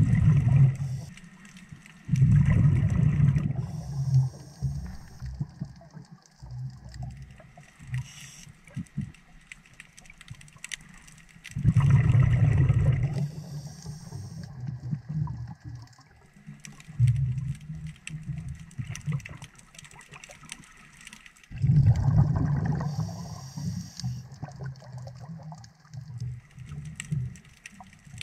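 Scuba diver breathing through a regulator underwater, heard about every ten seconds. Each exhale sends a burst of bubbles rumbling past the camera for about two seconds, followed by a short hiss from the regulator. Faint clicking carries on in between.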